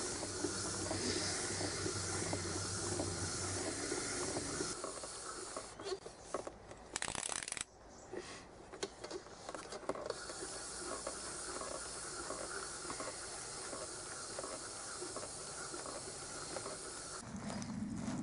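Mini pedal exerciser cranked round by hand, its pedals and flywheel giving a steady whirring rush. About five seconds in it stops for a few seconds, with a few clicks and a short loud burst, then runs steadily again.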